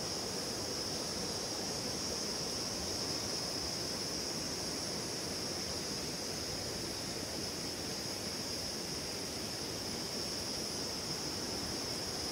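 Shallow river water running over stones in steady, even rushing, with a constant high-pitched insect drone over it.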